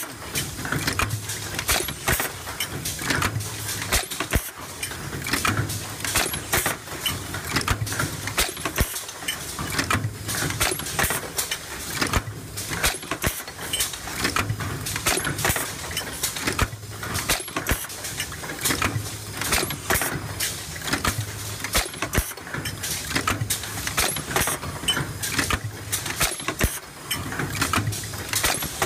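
Stamping press working a progressive deep-drawing die, cycling about every two and a half seconds, with a low hum that swells on each stroke and many sharp metallic clicks and knocks throughout.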